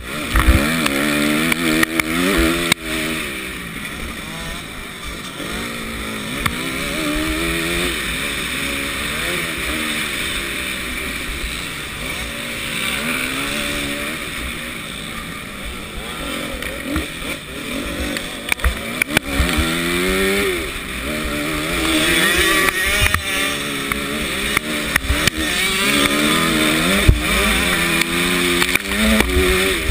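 Motocross bike engine racing, its revs rising and dropping again and again as the rider works the throttle. Wind noise and scattered knocks come through the helmet-mounted camera.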